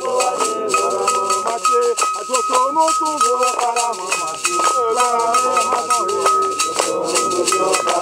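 A group of men singing a chant together with handclaps and a rhythmic rattle shaking, over a steady high ringing note.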